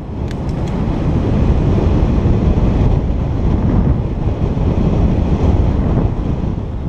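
Wind rushing over a cyclist's camera microphone while riding, a steady low rumble.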